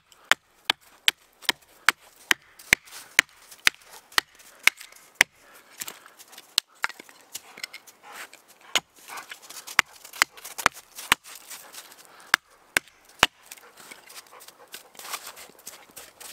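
Small axe chopping a piece of hardwood held upright on a stump, shaping it into a splitting wedge: quick sharp chops about twice a second for the first five seconds, then slower, irregular chops.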